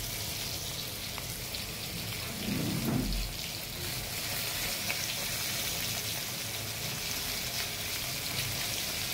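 Rohu fish pieces deep-frying in hot mustard oil in a kadhai: a steady sizzling hiss.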